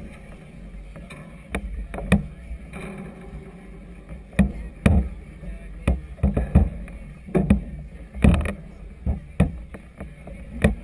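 Choppy harbour waves slapping against the hull of a moored floating clubhouse over a steady low rumble. The slaps come irregularly and grow more frequent from about four seconds in, at times a couple each second.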